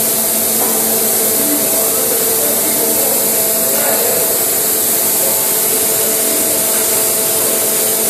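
Steady loud hiss of machinery inside a tunnel boring machine, such as ventilation and hydraulic power units, with two steady humming tones underneath.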